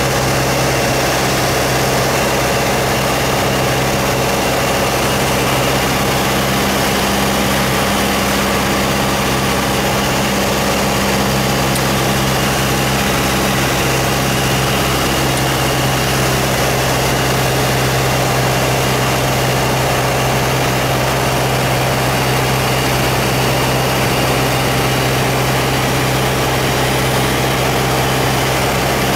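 Aircraft engine drone heard inside the aircraft on final approach to landing: a loud, steady hum with a low tone in it, one part of the note fading out about halfway through.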